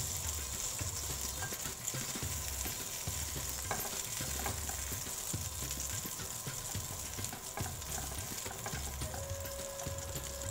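Seekh kebabs sizzling in hot oil in a nonstick frying pan, a steady hiss, with scattered light clicks of a spatula against the pan as they are turned and lifted out.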